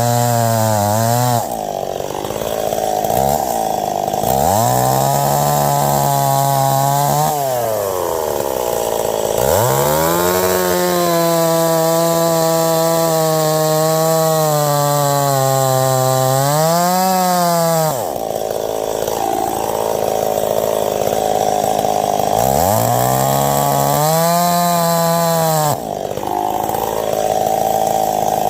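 Ported Stihl 026 two-stroke chainsaw cutting ash logs at full throttle. Its pitch drops and steadies under load in the cut and climbs back as the chain comes free, several times over.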